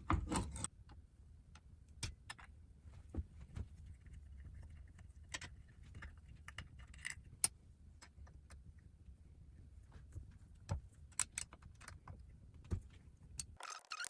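Scattered metallic clicks and clinks of tools and steel vise jaw plates being handled as the jaws are removed from a bench vise, over a low steady hum that cuts off near the end.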